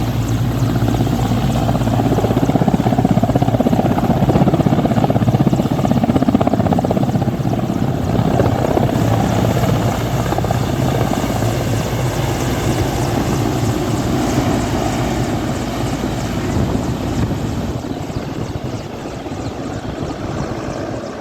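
Helicopter rotor and engine running loud and steady with rapid rotor beating, the sound slowly getting quieter over the last several seconds.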